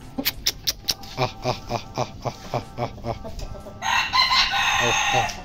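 Chickens clucking in a quick, even run of short calls, then a rooster crowing loudly for over a second near the end.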